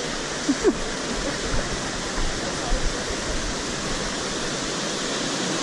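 Rushing water of the Pliva river's spring, a large volume pouring out of a single opening in the ground, making a steady, unbroken rush.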